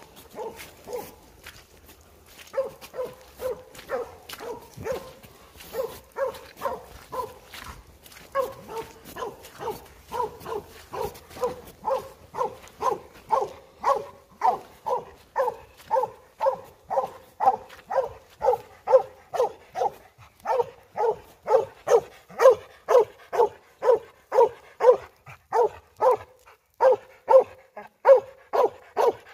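Coonhound barking treed at a raccoon in a hollow tree: a long run of short barks, sparse and faint at first, then steady at about two a second and growing louder as the dog comes closer.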